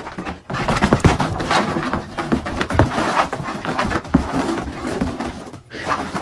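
Irregular thumps, knocks and scuffs as a large dog scrambles about on a carpeted floor.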